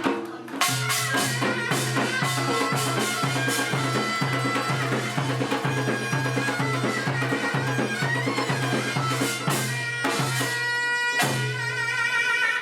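Korean pungmul folk band playing: a reed-horn melody over a steady drum beat. The music stops abruptly at the end.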